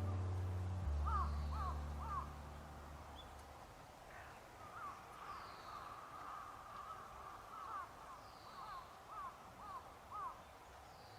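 A bird calling in short runs of three or four brief calls, with pauses between the runs. A low music note fades out under the first calls.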